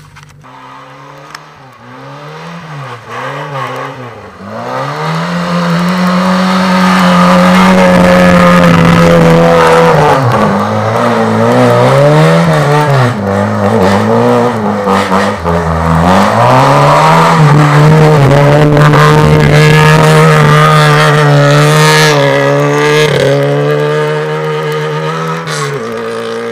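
Old Lada sedan's engine revved hard as the car spins its wheels and slides on snow. It starts with a few quick throttle blips, then holds high revs for long stretches, dropping and climbing again in between before easing off near the end.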